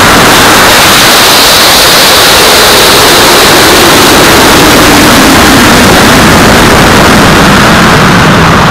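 Loud, steady rush of noise picked up by a camera riding on a high-power model rocket flying on an AeroTech K456 Dark Matter motor: motor exhaust and air rushing past the airframe during the climb, near the top of the microphone's range. A faint tone within the rush slowly sinks in pitch.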